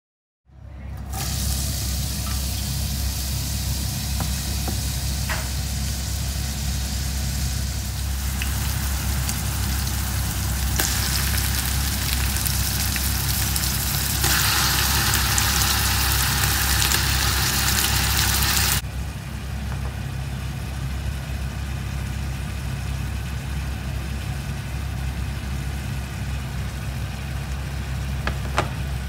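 Onions and sheep tripe frying in a pot over very high heat: a steady sizzle over a low hum. The sizzle turns louder and hissier for a few seconds about halfway through, then drops back suddenly.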